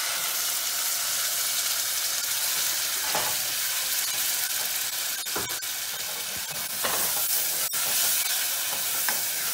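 Wet ground masala paste sizzling hard as it hits hot oil in a saucepan and is stirred with a plastic spatula. The sizzle starts all at once and holds steady, with a few sharp clicks of the spatula against the pan.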